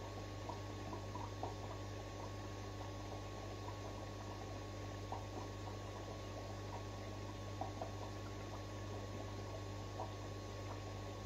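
Aquarium filter running: a steady low hum under a continuous fine crackle of bubbling water.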